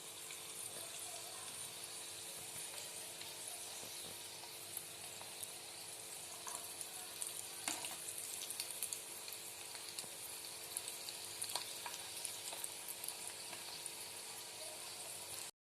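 Chicken spring roll pieces deep-frying in hot sunflower oil, a steady sizzle with scattered crackles and a few faint clicks as the pieces are turned.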